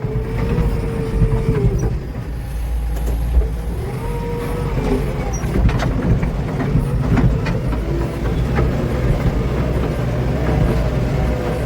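Heavy diesel machinery engine running steadily, with a whine that rises and falls a few times and scattered metal clanks.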